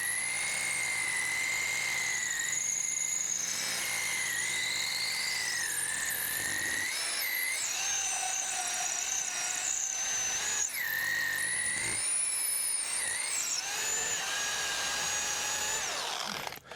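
Electric power drill boring a 1/2-inch anchor bolt hole into a concrete slab, its motor whining steadily with the pitch wavering up and down under load. It eases off briefly twice near the middle and stops near the end.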